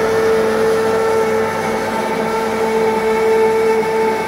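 Handheld immersion blender running steadily at one speed, puréeing a pot of red sauce, its motor giving a constant loud whine.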